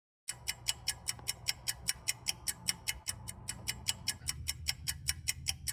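Fast clock-ticking sound effect, an even run of sharp ticks at about six a second over a low steady hum, marking time passing; the ticks start a moment in and grow fainter toward the end.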